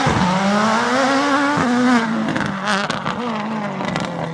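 Race car engine sound revving up over about a second and a half, then dropping back and running on at a lower, wavering pitch.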